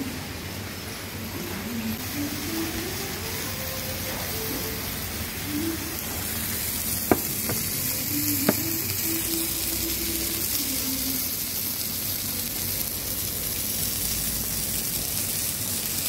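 Chicken hot pot sizzling on a hot sizzler plate, a steady hiss, with a few sharp clinks about seven to eight and a half seconds in.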